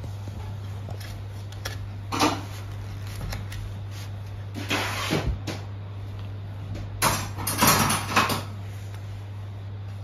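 Soft knocks and rustles as a baby handles food on a bamboo plate in a high-chair tray: a short one about two seconds in, another around five seconds, and a longer, louder cluster around seven to eight seconds. A steady low hum sits underneath.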